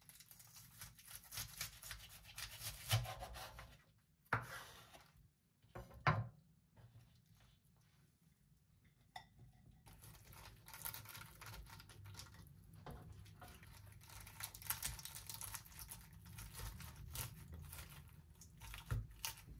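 A chef's knife cuts through a stack of crisp napa cabbage leaves and pork belly on a wooden cutting board with a crackly crunching, followed by two sharp knocks. Then come a long crinkly rustling and scraping as cabbage and pork sections are pressed into a ceramic donabe pot.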